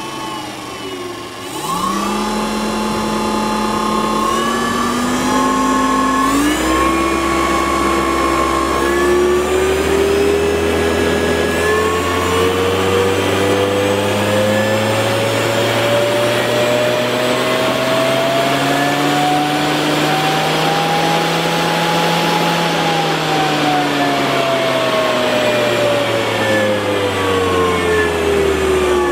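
A 3.5 hp brushed permanent-magnet DC motor spinning up under a home-built PWM motor controller and running free with nothing on its shaft. Its whine climbs in a few small steps, then rises smoothly in pitch for about twenty seconds, and falls again as the motor slows near the end.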